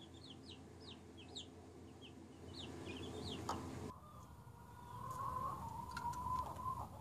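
Young chicks peeping: many short, high, falling peeps, several a second. About four seconds in, the peeping gives way to an adult chicken's single long, drawn-out call, which swells and holds for about three seconds.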